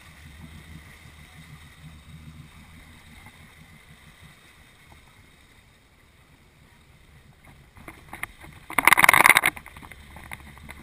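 Jeep's engine running low and steady as it works through a water-filled mud hole, with a short, loud burst of splashing and churning about nine seconds in.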